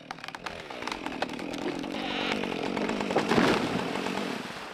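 A tree being felled with a chainsaw: a quick run of sharp wood cracks in the first second or so, then a louder rushing noise that swells about three and a half seconds in and fades away.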